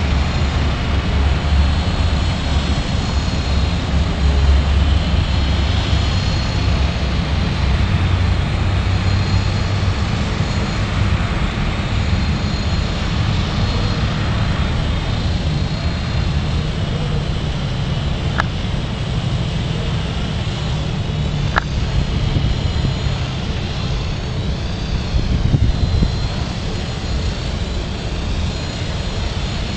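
Belt-driven fixed-pitch micro RC helicopter with a metal rotor head flying at a distance: a steady motor and rotor sound with a faint high tone that rises and falls in pitch about 25 seconds in. A heavy low rumble lies under it throughout.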